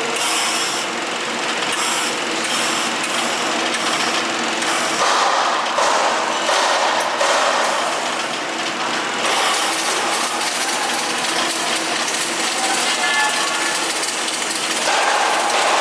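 Busy welding-shop noise: a steady hiss and crackle mixed with the clatter of tools and machinery.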